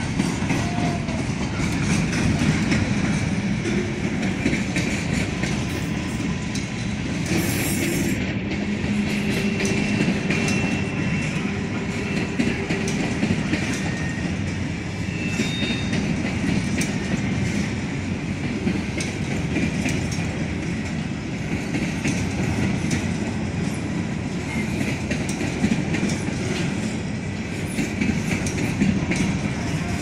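Norfolk Southern freight train's cars rolling past close by: a steady rumble of steel wheels on rail with repeated clicks over the rail joints, and faint high wheel squeals at times.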